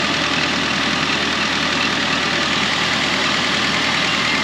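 Ford Ranger's 2.3-litre four-cylinder engine idling steadily, running smoothly after a new coil pack, spark plugs and plug wires have cured its misfire.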